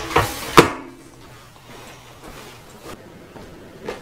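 A window being pushed shut, with a sharp knock about half a second in, followed by a few faint thuds.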